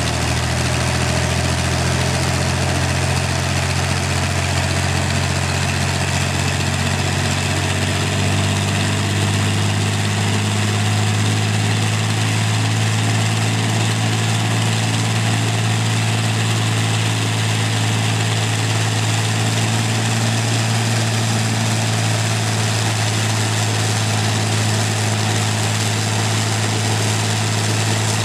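Rolls-Royce Merlin Mk500 27-litre V12 aero engine running steadily on a test stand, turning its propeller. The engine note shifts slightly about ten seconds in, then holds.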